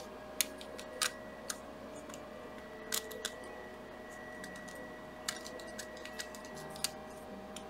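Small model-kit parts being handled and test-fitted together while fitting a lens part, giving about seven scattered light clicks and taps over a faint steady hum.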